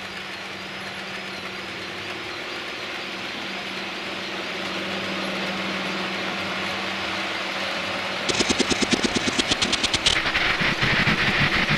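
Model diesel locomotive's DCC sound unit running with a steady engine drone. About eight seconds in, a rapid, even clicking of model wheels over rail joints starts as the coaches pass, and it quickens near the end.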